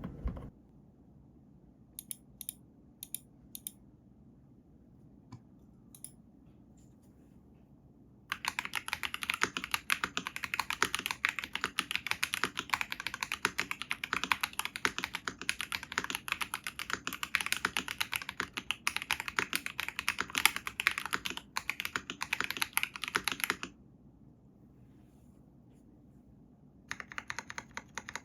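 Mechanical keyboard with lubed Akko V3 Cream Blue tactile switches being typed on. A few single keystrokes come first, then about fifteen seconds of fast continuous typing, a short pause, and typing again near the end.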